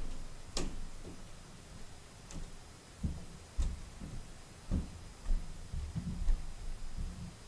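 Handling noise: a few sharp clicks and irregular soft low thumps.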